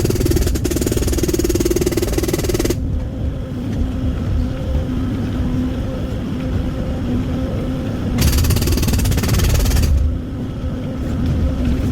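Excavator's diesel engine running steadily, with two loud spells of hydraulic attachment noise as it works on firewood: one lasting nearly three seconds at the start, another about eight seconds in.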